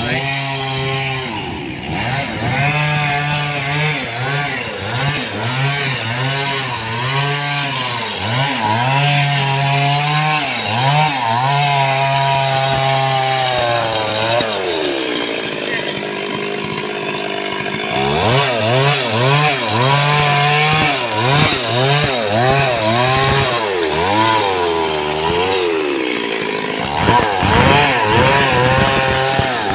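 Stihl chainsaw cutting into a large tree stump, its engine pitch rising and falling continuously as the chain works through the wood. The revs drop away a little past halfway and climb again a few seconds later.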